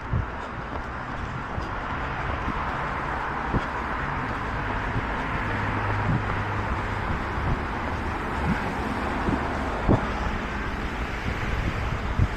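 Road traffic noise with a vehicle passing, swelling and then easing in the first half, over wind on the microphone; a few sharp thumps stand out here and there.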